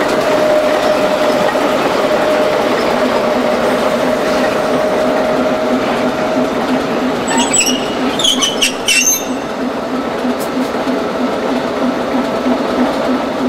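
Diesel shunting locomotive V2.004 running, its engine giving a steady pulsing throb as it rolls slowly along and comes to a halt. A few brief high-pitched wheel squeals come about eight seconds in.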